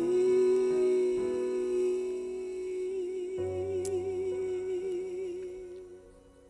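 A singer holds the final sung note of a slow worship song, with soft instrumental chords beneath that change about halfway through. Vibrato comes into the held note about halfway through, and the song then fades out near the end.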